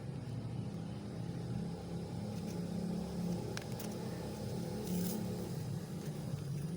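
A steady low engine-like drone, with a couple of faint clicks in the middle.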